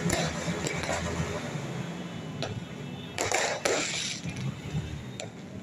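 Aerial fireworks going off: a few sharp cracks, then a louder crackling burst a little past three seconds in, over a steady low hum.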